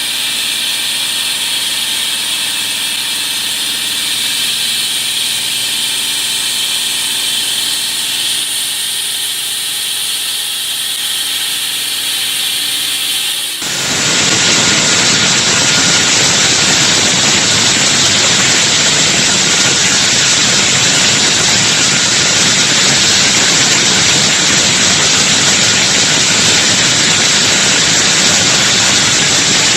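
High-frequency electric concrete wall saw running with a steady multi-tone whine. About halfway through, the sound abruptly changes to a louder, even rushing noise.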